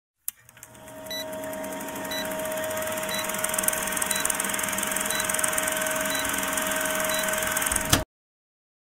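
Vintage film-projector countdown sound effect: a steady whirring hiss with a rapid, even clatter and a steady hum, marked by a short high beep about once a second. It cuts off abruptly with a pop about eight seconds in.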